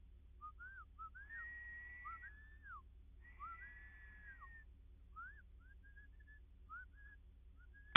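Electronic predator call playing high whistled wailing notes, short rising-and-falling cries with two longer held notes, meant to draw the coyote in. A single loud rifle shot cracks right at the very end.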